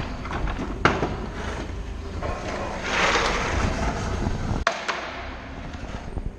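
Two sharp knocks, a loud one about a second in and another near the five-second mark, over a steady background rumble and hiss.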